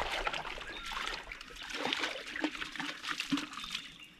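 Shallow swamp water splashing and trickling in small, irregular splashes, stirred by a person wading and collecting a water sample in a bucket.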